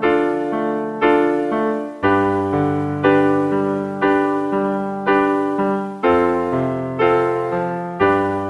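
Instrumental karaoke backing track with no vocal: electric piano chords struck about once a second, each fading before the next, over a low bass line that changes note every couple of seconds.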